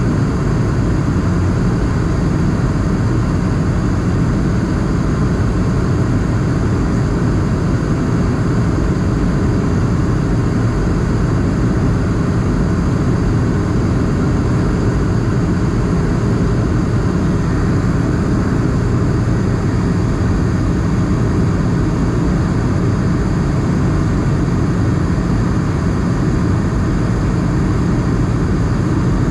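Steady cabin noise inside an Airbus A220 in flight: its Pratt & Whitney PW1500G geared turbofan engines droning, with the rush of air over the fuselage, heaviest in the low end and unchanging throughout.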